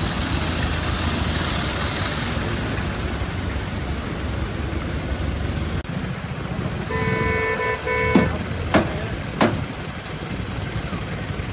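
Vehicle engines running amid street noise. A vehicle horn gives two short toots about seven seconds in, followed by three sharp knocks a little over half a second apart.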